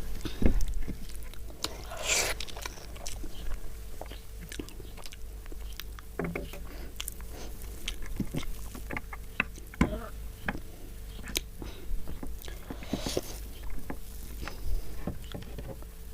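Close-miked eating sounds of someone eating rice with chicken gravy: chewing and wet mouth smacks with many short clicks, and a few short rushes of noise.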